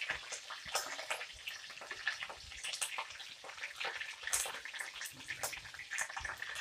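Curry leaves sizzling in hot coconut oil in a steel wok: a steady crackle with many irregular sharp pops.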